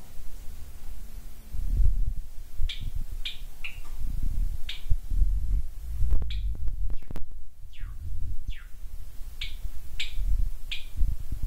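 Pet cage birds giving short, sharp chirps, about ten in all, several of them sliding down in pitch, over low rumbling handling noise from the phone.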